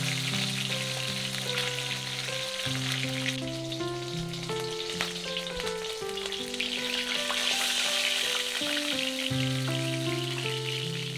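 Fish steaks frying in hot oil in an iron kadai, a steady sizzle, with a wooden spatula stirring and turning them. Soft background music of held notes plays under it.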